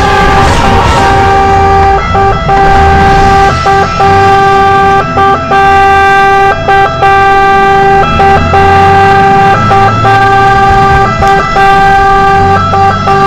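Fire engine's siren sounding loud inside the cab, one steady note held and broken by short gaps, mostly in pairs, about every second and a half, over the truck's engine rumble.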